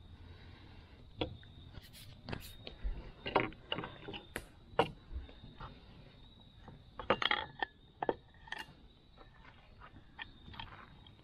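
Scattered clicks, taps and knocks of a metal pie iron and its dough being handled on a wooden table, with a louder clatter about seven seconds in.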